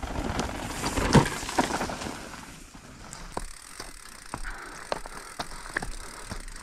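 Mountain bike rolling down a dirt singletrack: tyre noise over dirt and stones with scattered clicks and knocks from the bike rattling over the bumps. A louder rush comes about a second in.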